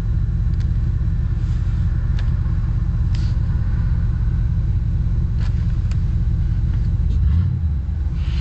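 The 1986 Cadillac Fleetwood Brougham's engine idling steadily, heard as a low rumble from inside the cabin, with a few faint clicks and a brief low thump near the end.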